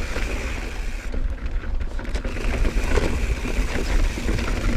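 Mountain bike riding down dirt singletrack, heard as a steady low rumble of wind buffeting a chest-mounted action camera's microphone and tyres rolling over the dirt, with a few faint clicks from the bike.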